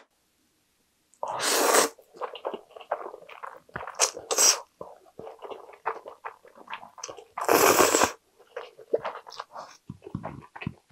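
A person eating jjajang ramen: two loud slurps of noodles, about a second in and again near eight seconds, with wet chewing and lip smacks between and after them.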